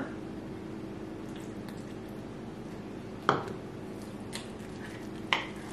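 A metal spoon stirring a thick, lumpy paste of sweet potato powder and water in a glass bowl: soft squishing with a few light clicks of the spoon against the glass, the clearest about three seconds in. A steady low hum runs underneath.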